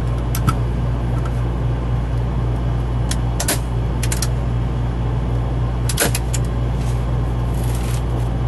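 Staple gun firing staples through fabric into a foam-padded wooden board: several sharp snaps a few seconds apart, some in quick pairs, over a steady low hum.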